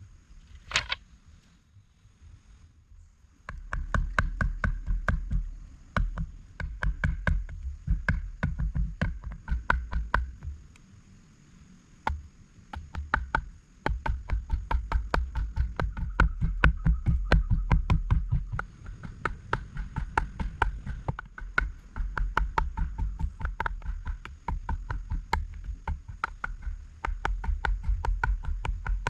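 Rapid, regular knocking, about three to four strikes a second with a low thud under each, in long runs broken by short pauses.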